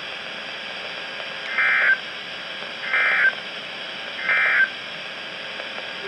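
A NOAA Weather Radio receiver plays the three SAME end-of-message data bursts: short, buzzy digital bursts about a second and a half apart, over a steady radio hiss. The bursts mark the end of the severe thunderstorm warning broadcast.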